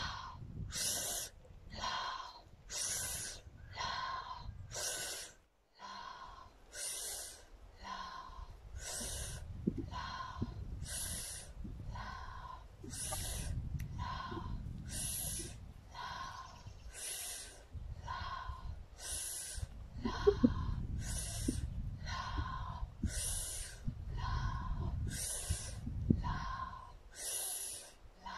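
A person breathing hard and rhythmically during a yoga twisting exercise, about one sharp breath a second.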